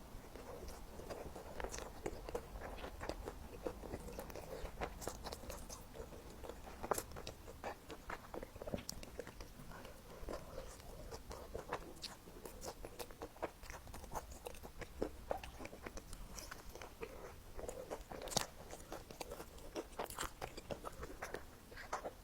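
A person eating: bites and chewing with many short, sharp wet mouth clicks.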